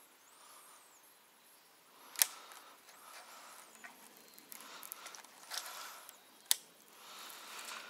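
A hooked fish splashing at the water's surface as it is reeled in, in short bursts a little past the middle. Two sharp clicks, about two seconds in and near the end, are the loudest sounds, and faint bird chirps come and go.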